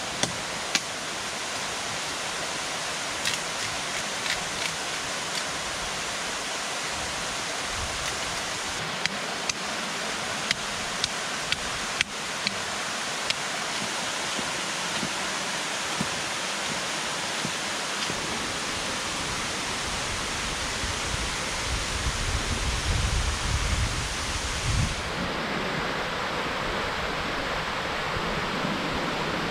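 Steady rush of flowing water, with scattered sharp clicks and a cluster of low thumps about two-thirds of the way through.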